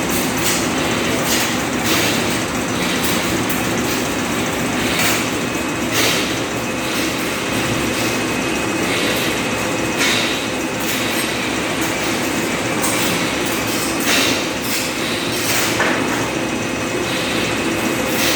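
Carrageenan capsule-making machine running steadily, a dense mechanical rumble with short sharp bursts every few seconds at irregular intervals.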